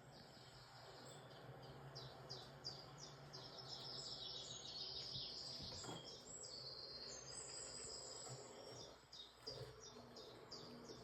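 Faint, quick, high chirping of small birds, many short falling notes in a row, over a faint steady low hum.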